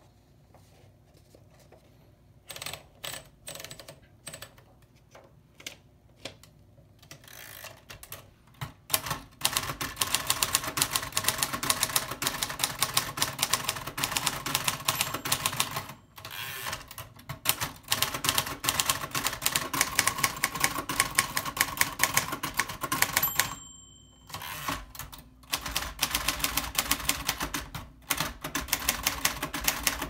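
1960 Royal Futura 800 manual typewriter: scattered clicks as paper is fed in and rolled up on the platen, then from about nine seconds in, fast continuous typing, typebars striking the platen and the carriage stepping along. Near the end of a line the margin bell dings once, followed by a short pause and a few clicks before the typing picks up again.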